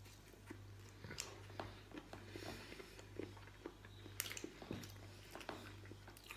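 A person chewing roast chicken and picking at it on a plate with the fingers: faint mouth sounds and scattered small clicks, over a steady low hum.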